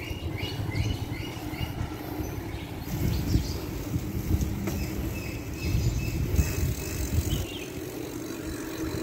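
Mountain bike riding on asphalt: a steady low rumble of wind on the microphone and road noise, swelling now and then.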